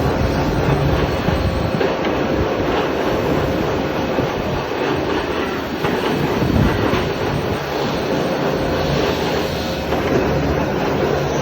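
Machine tool running while cutting a slot in metal: a steady mechanical clatter over a constant motor hum.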